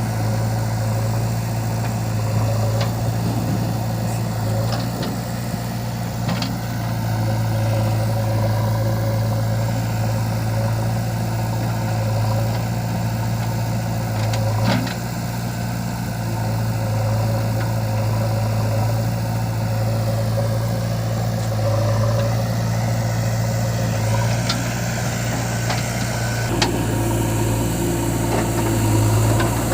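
Heavy diesel engine running steadily at a constant speed, with a few sharp knocks. Its note shifts slightly near the end.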